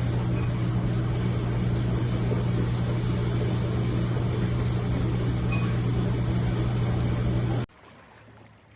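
Steady mechanical hum with a strong low drone and a noisy rush above it, cutting off abruptly near the end.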